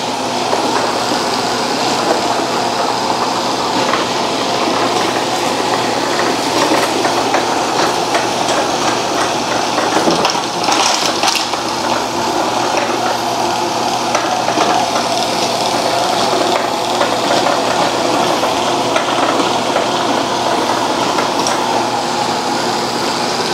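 Shark IQ robot vacuum running on a hard floor, a steady whir of its suction motor and brush roll with a low hum, with occasional short clicks and rattles.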